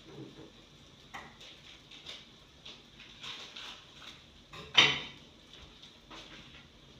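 Metal cookware being handled: a few light clicks and knocks, and one louder clatter a little under five seconds in.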